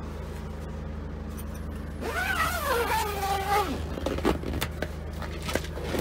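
A zip on a canvas pop-top's fly screen being worked by hand, a run of short rasping clicks over the last two seconds, over a steady low hum. About two seconds in, a drawn-out pitched sound rises and then falls, lasting about a second and a half.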